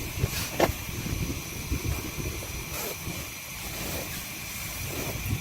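Steady hiss of heavy rain falling, with a few sharp taps or drips.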